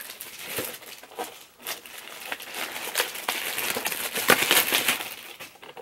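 Clear plastic wrapping crinkling and crackling as it is peeled off a perfume box and crumpled in the hands. It is busiest in the middle and thins out near the end.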